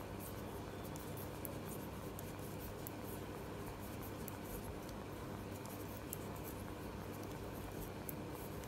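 Knitting needles clicking and scraping faintly as stitches of yarn are worked, over a steady low hum.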